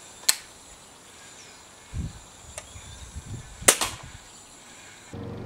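Gamo Expo-26 break-barrel air rifle: a sharp click shortly after the start as it is readied, then a single shot about three and a half seconds in, the loudest sound, a sharp crack.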